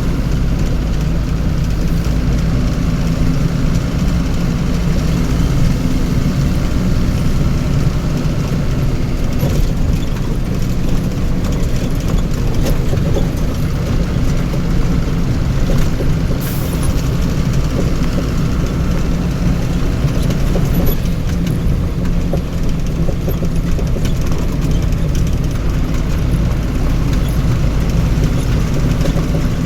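A motor vehicle's engine running steadily, a continuous low drone with road noise over it.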